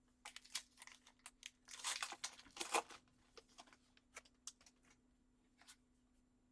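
Trading card pack wrapper being torn open and crinkled, a dense run of crisp crackles over the first three seconds, followed by scattered light ticks of cards being handled.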